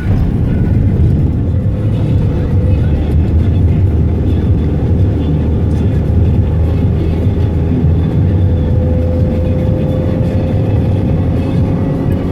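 Car driving: steady low engine and road rumble, with a faint tone that rises slowly in pitch through the second half.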